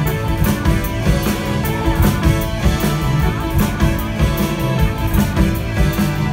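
Live rock band playing an instrumental passage, with electric guitar, electric bass and a drum kit keeping a steady beat.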